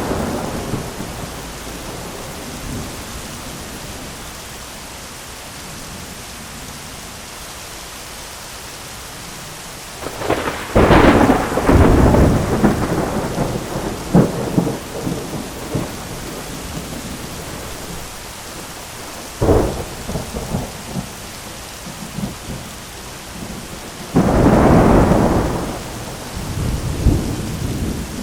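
Heavy rain falling steadily on an umbrella, with thunder: a long crackling peal about ten seconds in, a sharp crack just before halfway through, and another loud rumble near the end.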